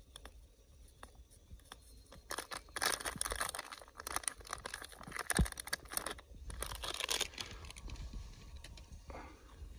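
A plastic instant-coffee sachet crinkling in bursts as it is shaken and squeezed to pour the powder into an enamel mug, loudest from about two seconds in to about seven seconds in. There is a dull bump about halfway through.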